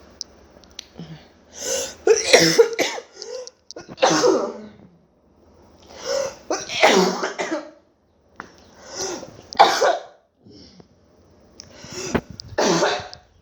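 A person sick with covid coughing in five bouts, two to three seconds apart, each one hard cough or a run of several.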